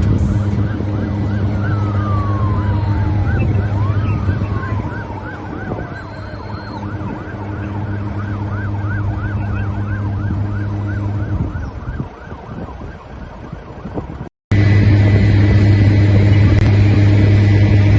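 Emergency vehicle sirens over a steady low engine drone: one siren in a fast repeating yelp, with long falling wails laid over it early on. After a sudden cut about three quarters through, a louder steady drone with no siren.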